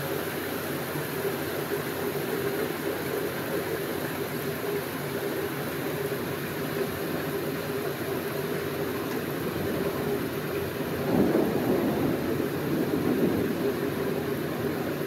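Heavy rain pouring steadily. About eleven seconds in, a low rumble swells and carries on.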